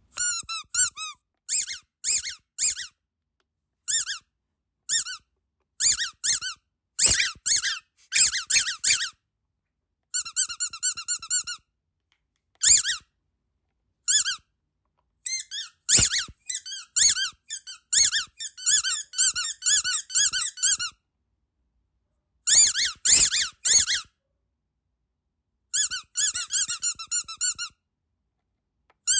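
Rubber duck squeaky toy squeezed again and again, giving short high-pitched squeaks in quick runs of two to six, with short silent pauses between the runs.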